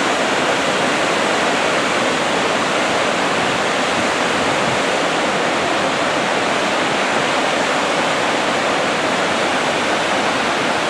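Waterfall: a loud, steady rush of falling water with no let-up.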